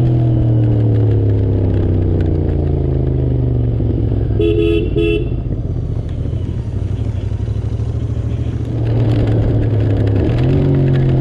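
Vehicle engine running in gear with its revs steadily falling as it engine-brakes. A horn gives two short toots about four and a half seconds in. Near the end the revs jump up and start falling again, as after a downshift.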